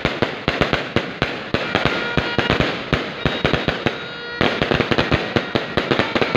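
Fireworks display: aerial shells bursting overhead in a dense, rapid string of bangs, several a second, with a short lull a little past halfway before the barrage picks up again.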